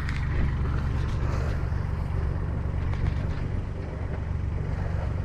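Universal M25-XPA three-cylinder marine diesel running steadily, with its raw-water cooling discharging, a good sign after its first start following the repairs.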